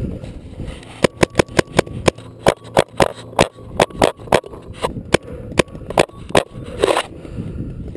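Rapid paintball fire: a string of about twenty sharp snaps at roughly three or four a second for some five seconds, stopping about six and a half seconds in. A short rush of noise follows.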